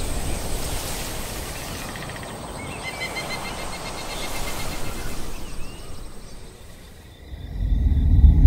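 Film-trailer evening outdoor ambience: a steady hiss with a thin high whine and a run of short chirps, fading away. About seven and a half seconds in, a deep low rumble swells up and becomes the loudest sound.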